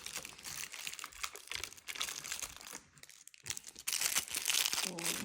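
Packaging crinkling and tearing as an advent-calendar compartment is opened and a fishing lure unwrapped, with a short lull and then a louder stretch of rustling about four seconds in.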